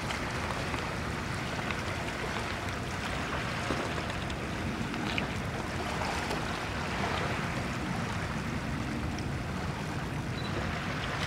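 Steady rushing ambience of a tidal shore, water and wind noise together, with a few faint ticks.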